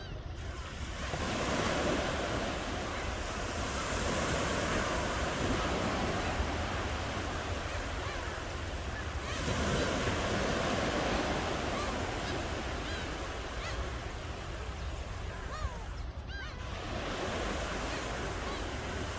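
Ocean waves breaking on a shore, the surf swelling about every eight seconds, three times, over a steady low rumble.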